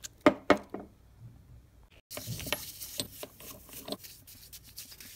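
A few sharp knocks in the first second. Then, about two seconds in, a stiff bristle brush starts scrubbing an oil-soaked metal part of a disassembled air impact wrench: a steady scratchy rubbing with small clicks.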